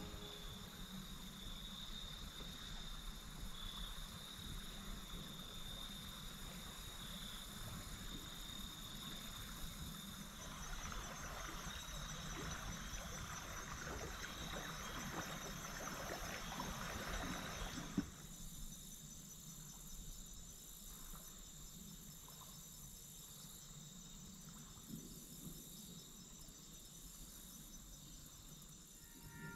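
Crickets and other insects trilling steadily and faintly. About ten seconds in a broad rushing hiss joins them, then stops suddenly with a click about eighteen seconds in, leaving a thinner, higher insect trill.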